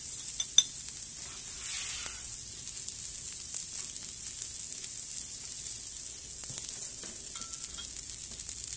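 Filet mignon searing on a Blackstone flat-top griddle: a steady, high sizzle. A couple of sharp clicks sound about half a second in.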